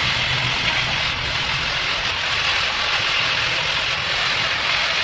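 Gas welding torch flame burning with a steady hiss over a low, fluttering rumble.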